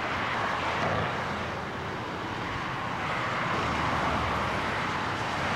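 Dense freeway traffic noise: a steady wash of tyre and engine sound from many cars and trucks passing on a multi-lane highway, played as a demonstration of traffic at a sound level of 80 dBA.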